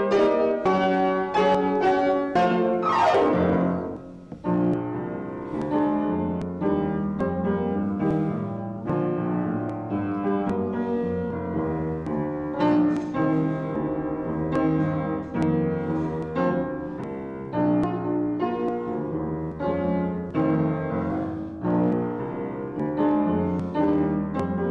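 Piano playing a classical-style piece: quick struck chords, a fast downward run about three seconds in, then a steadier flowing passage.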